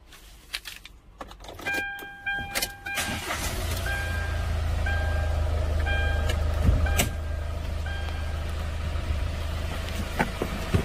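Hyundai H1 Starex's 2.5-litre turbo-diesel engine starting on the key about three seconds in, then idling steadily. A dashboard warning chime beeps repeatedly, roughly once a second. A few clicks and knocks come near the end.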